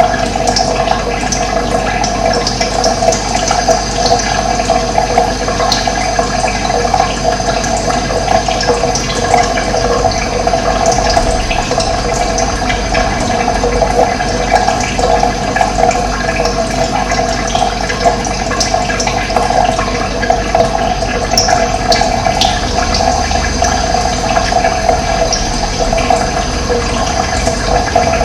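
Running water flowing in a steady rush. A few faint, short bird chirps come through high above it.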